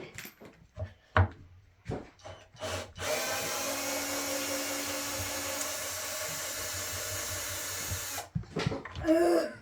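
A power drill runs steadily for about five seconds, then stops suddenly, likely driving screws out of an RCF NX 945 loudspeaker cabinet being taken apart. Light knocks and clicks of handling come before it.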